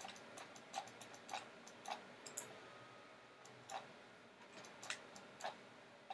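Faint computer mouse clicks, about a dozen at uneven intervals, with a pause of about a second in the middle.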